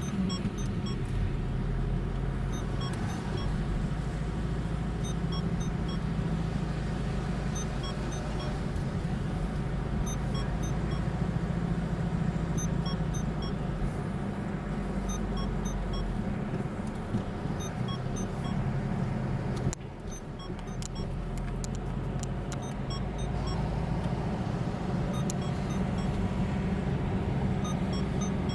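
Car interior sound while driving slowly: a steady low engine and road rumble. It drops briefly about two-thirds of the way through, and a few light ticks follow.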